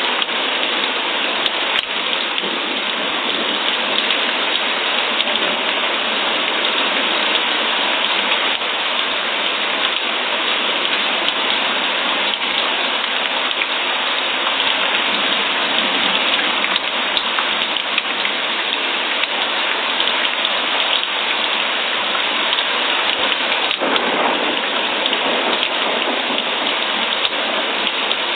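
Steady rain falling and pattering on surfaces, an even hiss with scattered faint drop ticks and no change in level.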